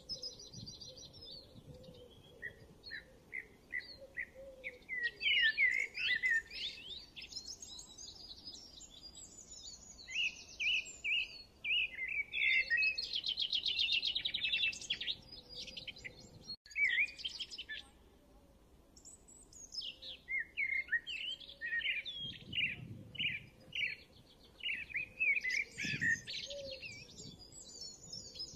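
Birds chirping and singing: quick trills and short whistled phrases coming and going, with a quieter lull a little past the middle.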